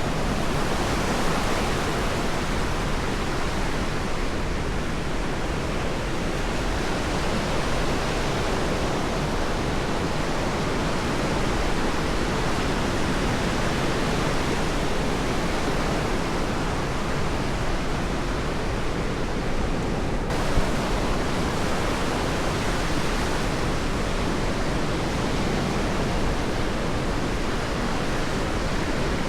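Ocean surf washing onto a sandy beach, a steady unbroken wash of noise with no distinct single breakers.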